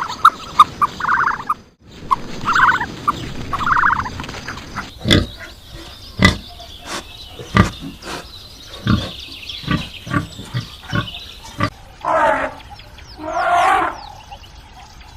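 A string of short animal clips cut together: quick yelping calls at the start, a sudden cut, a few brief calls, then a long run of sharp knocks, and two longer calls near the end.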